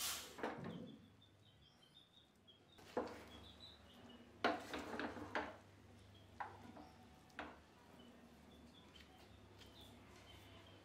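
A metal ladle scraping and stirring cooked rice in an aluminium pressure cooker, in a few short scrapes and clatters with quiet gaps between.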